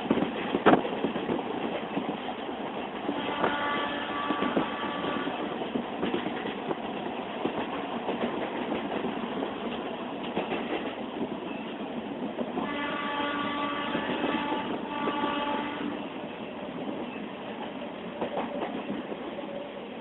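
Diesel-electric multiple unit (DEMU) train running, wheels clattering over rail joints. Its horn sounds twice: a blast about three seconds in and a longer one, with a brief break, about thirteen seconds in.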